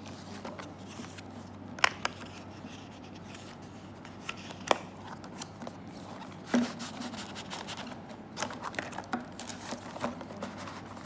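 Cardboard product packaging being handled and slid apart: the inner box scraping out of its cardboard sleeve, with scattered clicks and taps of cardboard. There are two sharper clicks about two and five seconds in, and a soft knock against the table a little later.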